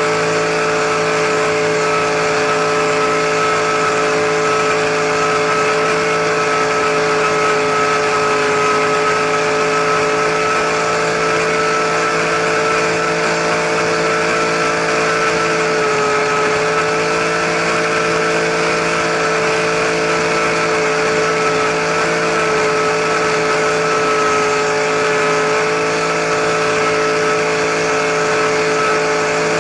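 RC helicopter's motor and rotor running steadily in flight, heard from on board: a loud, steady whine with a slight dip in pitch about halfway through.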